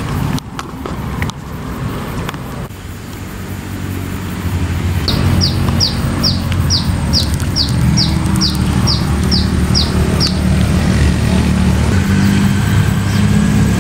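A bird calling a quick series of about thirteen short, high, downward-sweeping notes, about two and a half a second, from about five seconds in to about ten. A steady low motor-like hum lies under it and grows louder partway through.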